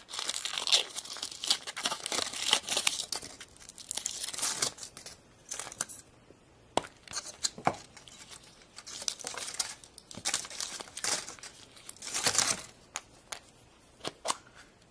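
Foil wrapper of a chocolate surprise egg crinkling and tearing in irregular bursts as it is peeled off by hand. A few sharp clicks partway through as the chocolate shell is broken and the plastic toy capsule inside is handled, then more crinkling.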